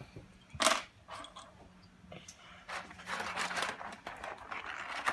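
Packaging crinkling and rustling as small toys are handled, with one sharp knock about a second in and a longer stretch of crackling in the second half.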